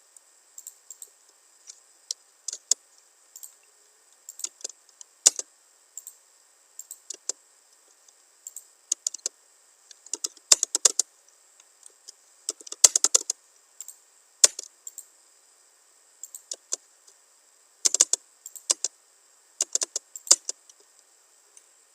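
Computer keyboard typing and clicks in irregular short bursts, some single keystrokes and a few quick runs of several.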